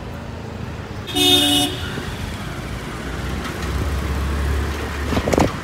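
City street traffic from a moving two-wheeler: a vehicle horn toots once, briefly, about a second in, over a steady low rumble of engines and road noise that grows louder near the end.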